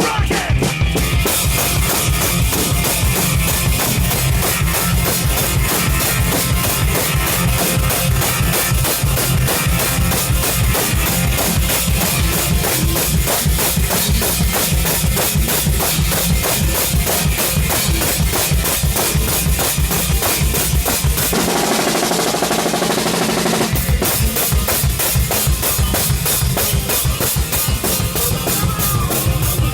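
Robot drummer playing a fast heavy-metal beat on an acoustic drum kit, with a rapid, pounding kick drum and cymbals. A little over 20 seconds in, the kick drops out for about two seconds, then the full beat comes back.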